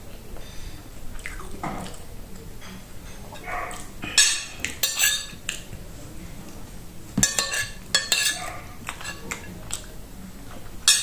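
Metal spoon scraping and clinking against a ceramic plate as leftover rice is scooped up. The strokes come in two clusters, about four and seven seconds in, with one more sharp clink at the end.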